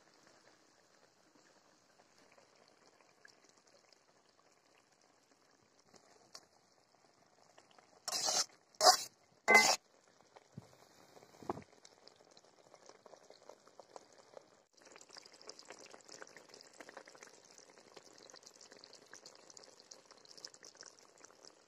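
Fish curry simmering in an open metal kadai, bubbling and crackling steadily, louder from about two-thirds of the way through. Three loud knocks come in quick succession about eight seconds in, followed by a couple of lighter clicks.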